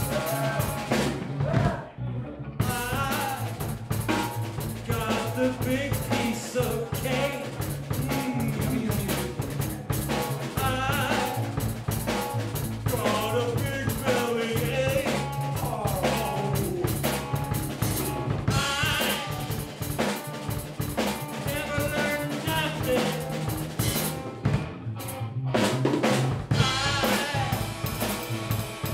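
A live blues-rock trio plays an instrumental passage: drum kit, electric bass and electric guitar, with the guitar playing lead lines full of bent and wavering notes. The band breaks off briefly about two seconds in.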